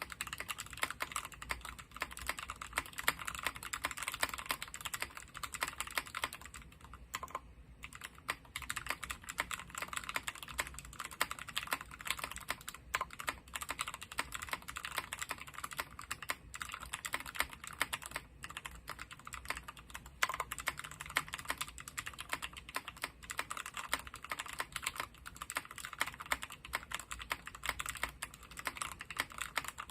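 Continuous fast typing on a Morgan65 custom mechanical keyboard: Alpaca linear switches lubed with Krytox 205g0, mounted in an aluminium plate, under GMK doubleshot keycaps. The keystrokes are a dense run of short clicks, with a brief pause a few times.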